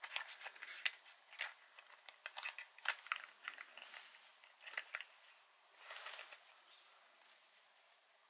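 Small cardboard spark plug boxes being handled among other parts in a carton: faint, irregular light clicks, taps and crinkling rustles, with a slightly longer rustle about six seconds in.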